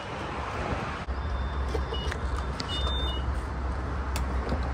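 A car moving, heard from inside the cabin: a steady low rumble, with several short high electronic beeps and two longer beep tones in the middle.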